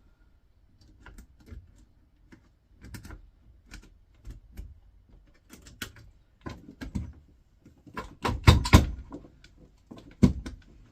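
Clicks, taps and knocks of a small electrical unit's plastic and metal parts being handled and worked with hand tools, irregular and sharp, with a burst of louder clattering knocks about eight seconds in and one more sharp knock a little later.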